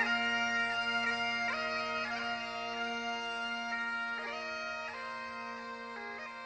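Great Highland bagpipe playing a slow tune, the chanter stepping between held notes over a steady drone, growing slightly quieter toward the end.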